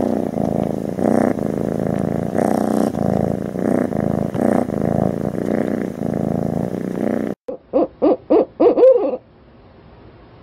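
A tiger's low, pulsing rumble for about seven seconds, then it cuts off and a barred owl gives a quick run of six or seven hoots that grow louder.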